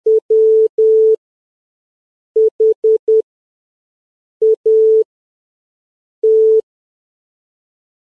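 Morse code sent as beeps of one steady mid-pitched tone, in short dots and longer dashes. Four letters are keyed with pauses between them: dot-dash-dash, four dots, dot-dash, then one dash, spelling W-H-A-T.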